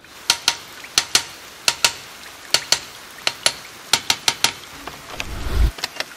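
An inspection hammer tapping a truck's wheel nuts: sharp metallic ringing strikes in quick pairs, about one pair every three-quarters of a second. This is the usual hammer check of the nuts for looseness. A low rumble swells and cuts off about five and a half seconds in.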